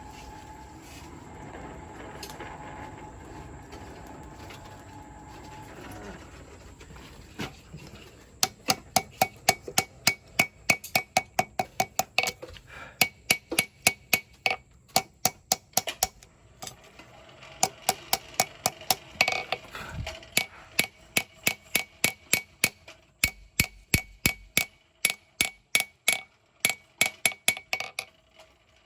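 Blacksmith's hammer striking a hot knife blade on the anvil in steady runs of about three blows a second, each blow ringing the anvil, with short pauses between runs. The hammering straightens the blade. Before the hammering starts there are a few seconds of steady rushing noise.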